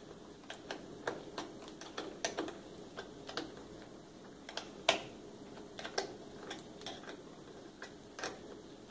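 A wrench clicking in short, irregular metallic clicks, roughly one or two a second, as a battery cable terminal nut is snugged down. The loudest click comes about five seconds in.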